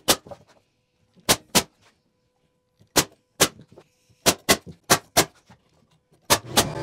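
Pneumatic nail gun driving nails into a wooden door frame: about a dozen sharp shots, mostly in quick pairs. Near the end an air compressor starts up with a steady hum.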